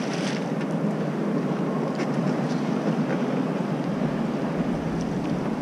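Steady wind rushing over the microphone on an open boat, with a couple of faint knocks about two seconds in.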